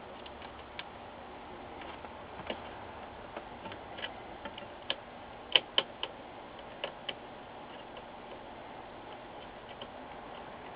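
Irregular small sharp clicks and taps of the monitor's plastic backlight plugs being handled and pushed into their sockets on the power supply board, the two sharpest clicks coming close together a little past halfway.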